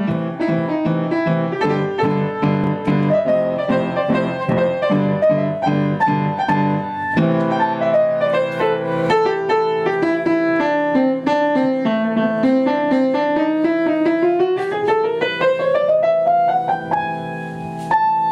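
Upright piano being played: steady repeated chords for the first several seconds, then held low notes under a line of notes that runs down and climbs back up.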